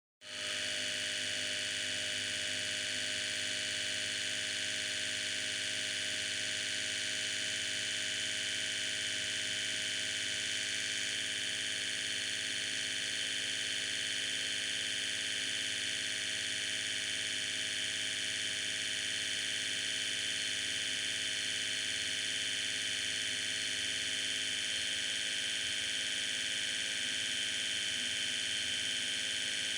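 A steady, unchanging hum with a bright hiss high above it, fading in over the first half second.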